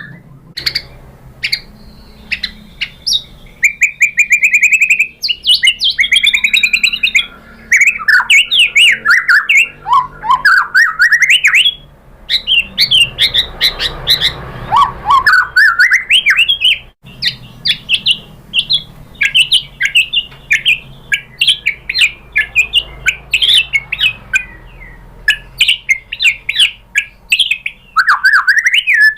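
White-rumped shama singing a long, varied song of loud whistles, slurred rising and falling glides and rapid chattering notes, played as a lure song to set other shamas singing.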